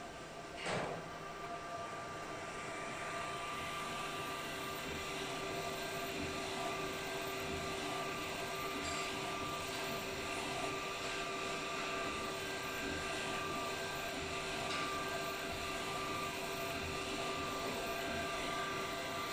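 KAIBAICEN A3 UV printer with its rotary cylinder attachment running while it prints onto shoes: a steady whirring hum of motors and cooling fans with a few steady whining tones. A short knock sounds just under a second in.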